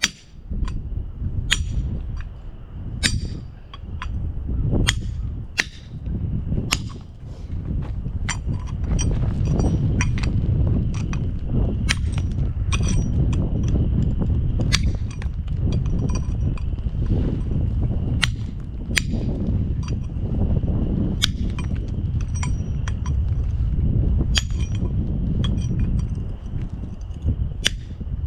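A 3-pound sledgehammer striking a chisel in uneven blows about once a second, each with a short metallic ring, while chiseling material off so the butts line up. A steady low rumble runs underneath and grows louder after the first several seconds.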